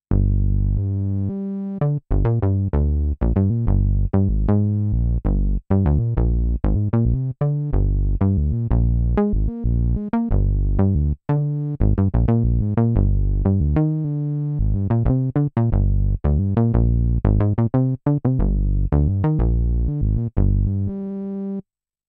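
Dave Smith Mopho x4 four-voice analog synthesizer playing its "Deep" patch: a quick run of short, punchy bass-heavy notes, about three or four a second, that stops just before the end.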